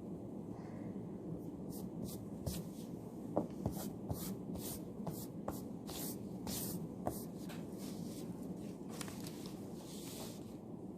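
Writing by hand on paper: a run of quick, short scratchy strokes with a few light knocks on the desk, over a steady low background hum.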